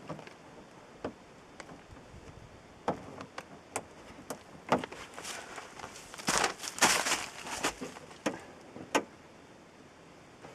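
Sharp plastic clicks and snaps spaced a second or so apart, with a short stretch of scraping and rustling about six seconds in. These are zip-tie tails being bent over and pushed into Ziptie Plug caps, and the caps being snapped shut.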